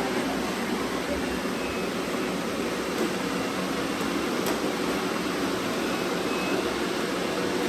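Several robot vacuums running at once, making a steady mechanical hum of motors and brushes.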